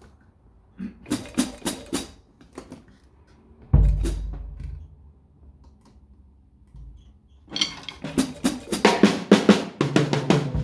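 Drum kit played freely: a short burst of quick, sharp hits, then one heavy low drum hit that rings out for about a second, then a fast, busy run of hits building through the last few seconds.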